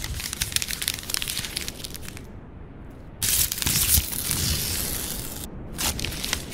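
Paper crumpling and tearing sound effects in three crackly stretches, the loudest starting about three seconds in.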